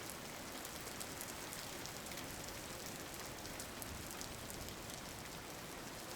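Steady rain falling on a surface, with many small drop ticks through it.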